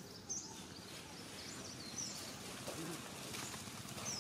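Outdoor ambience: a steady low background of noise with scattered short, high bird chirps.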